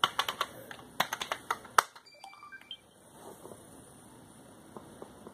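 Computer keyboard keystrokes: a quick run of key clicks typing a password, ending in one harder press of the return key, then a few faint short electronic beeps.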